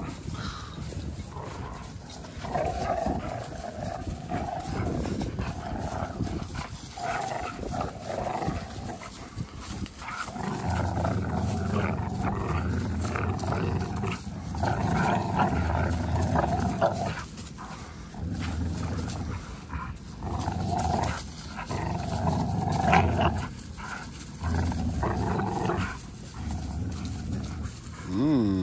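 Two pit bull-type dogs growling as they play tug of war over a toy, the low growls coming in runs of a second or two and running almost without a break from about ten seconds in.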